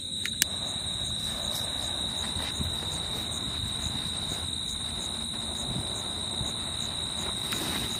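Crickets chirring in a steady high-pitched drone, with two sharp clicks near the start followed by a soft, even hiss of a gas jet lighter's flame held to the fuses of small ground-spinner firecrackers.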